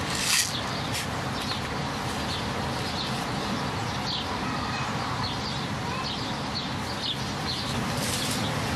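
Steady gusty wind noise with faint, scattered bird chirps, and a brief papery rustle of a seed packet about a third of a second in.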